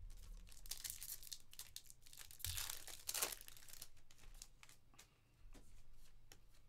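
A foil Panini Contenders football card pack being torn open and its wrapper crinkled, with quick crackling throughout. The loudest stretch of tearing comes about two and a half seconds in.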